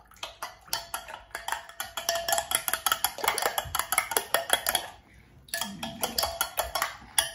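Metal utensil stirring rapidly in a glass measuring jug of citric acid solution, clinking and scraping against the glass as a xanthan gum and glycerin mix is worked in. The clinking stops briefly about five seconds in, then starts again.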